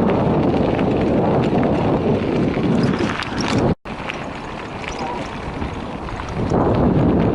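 Wind rushing over the microphone of a bicycle in motion, with tyre rumble. It cuts out abruptly a little past the middle, comes back quieter, and swells again near the end.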